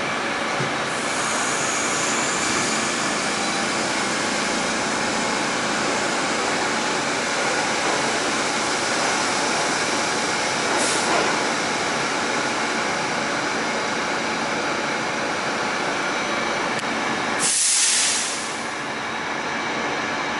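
Steady running noise heard inside an R46 subway car: a continuous rumble and hiss from the wheels and running gear. About eighteen seconds in comes a short, loud hiss, and the noise drops a little after it.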